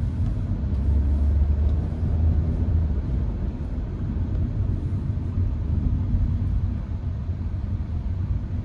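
Low, steady rumble of a Hyundai HB20 1.6 automatic on the move, heard from inside the cabin: engine and road noise, swelling a little from about one to three seconds in.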